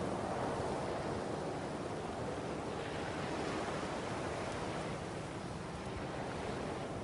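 Ocean surf washing steadily onto a shore, swelling a little about halfway through.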